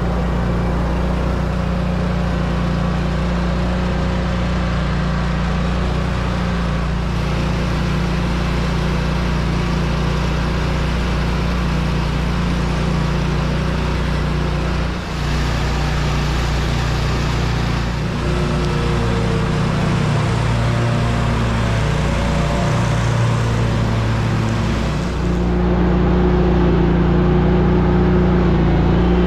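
Lawn mower engine running steadily during mowing, with a shift in its sound about halfway and again near the end.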